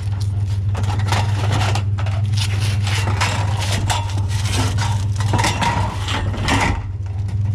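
Scrap metal and plastic junk clattering, knocking and scraping as it is pulled and shifted by hand, over the steady low hum of a vehicle engine idling.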